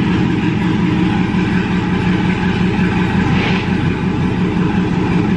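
Dodge Charger Scat Pack's 6.4-litre HEMI V8 idling loud and steady, warming up a minute or so after a cold start following two months of sitting.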